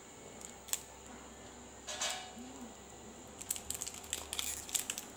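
Plastic wrapper of a Dairy Milk chocolate bar crinkling as it is torn open by hand, with a few sharp clicks, a brief tearing rasp about two seconds in, and dense crackling in the second half.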